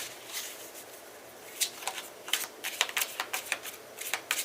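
Tarot cards being shuffled by hand: a quick run of small clicks and flicks, quieter for a moment near the start, then coming in bursts from about a second and a half in.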